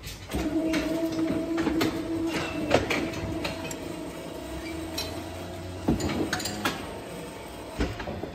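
A cow hoof-trimming crate at work: a motor hums steadily for about five seconds, under repeated metal clanks and knocks from the crate's steel frame and fittings.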